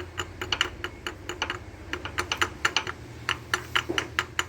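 Rapid, irregular run of light metallic clicks from hand tools working on a Scania 111 diesel engine while its injection timing is checked, over a faint steady low hum.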